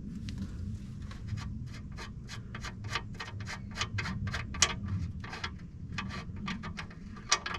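Ratchet wrench clicking in quick, even strokes, about four clicks a second, with a couple of louder clicks near the end.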